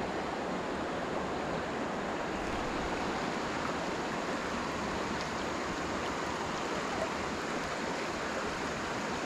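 Steady rush of river current running fast over a shallow riffle.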